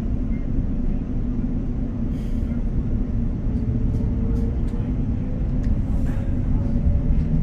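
Passenger train heard from inside the carriage while moving: a steady low rumble of the train running on the rails, with a few light clicks and a faint whine that rises slowly in the middle.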